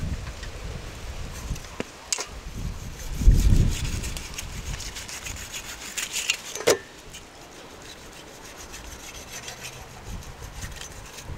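A long knife sawing slices off a spit-roasted whole bull, a scraping cut through the roasted meat, with a couple of sharp clicks. A low rumble about three seconds in is the loudest sound.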